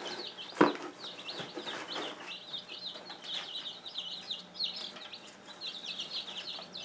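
A brood of young chicks peeping constantly, many high, short chirps overlapping. A single sharp knock sounds about half a second in.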